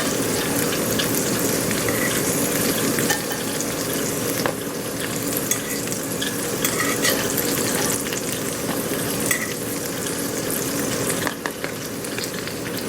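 Thin slices of meat frying in butter in a cast-iron skillet, a steady sizzle with scattered sharp pops.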